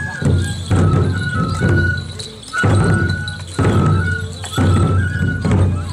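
Japanese festival procession music: a high bamboo flute playing a held melody with small pitch steps over heavy taiko drum beats that come about once a second.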